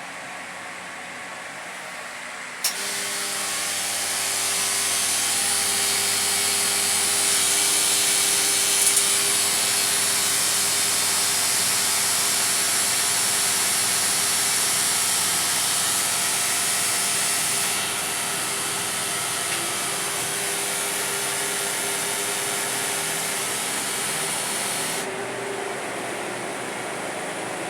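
A sharp click, then a machine under test running with a loud, steady hiss and a low hum. The hiss eases about two-thirds of the way through and its high part cuts off suddenly near the end.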